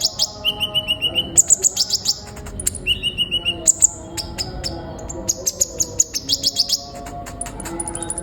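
Olive-backed sunbird singing: rapid trilled runs of high, sharp chirps, the phrases switching between higher and lower pitch with short gaps between them.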